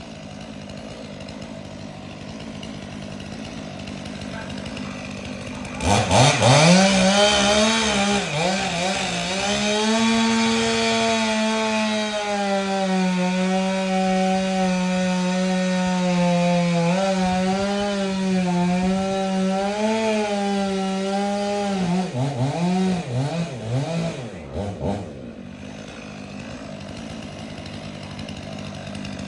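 Chainsaw idling, then revved up sharply about six seconds in and held at full speed for some fifteen seconds as it cuts into a canary palm trunk, its pitch sagging slightly under load. It is blipped a few times and drops back to idle near the end.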